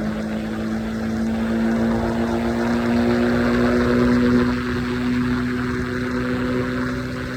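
Triumph Scrambler 400 X's 398 cc single-cylinder engine running steadily under way at highway speed, with wind and road rush. The engine note rises slowly for about four seconds, then eases off slightly.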